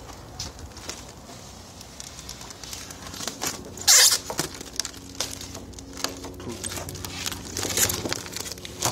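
Vinyl wrap film crackling and rustling as the torn sheet is handled, with many small crackles and a louder rustling burst about four seconds in.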